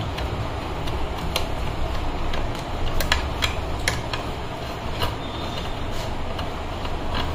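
Small metal clicks and taps of screws being taken by hand out of the sheet-metal casing of a Schindler lift NGL power supply and handled, scattered irregularly over a steady low rumble.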